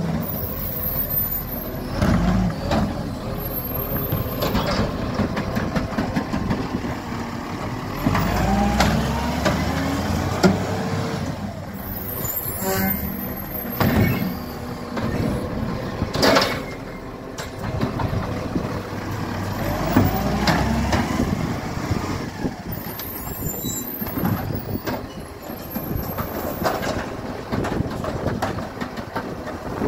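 Side-loader garbage truck working a kerbside pickup: the diesel engine rises and falls in pitch as the hydraulic arm reaches out, lifts and empties a wheelie bin, with several short, sharp air-brake hisses.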